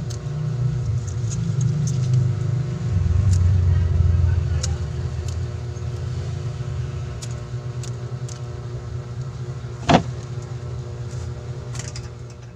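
A motor vehicle's low engine rumble, swelling a few seconds in and then easing off, with small ticks and one sharp click about ten seconds in.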